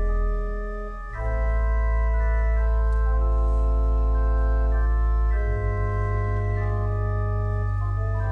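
Church organ playing slow, held chords over deep bass notes. The chord changes about a second in and again about halfway through.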